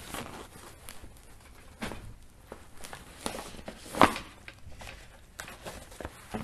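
Softbox fabric rustling with light clicks and taps as the support rods are flexed and their ends pushed into the corners, with one sharper knock about four seconds in.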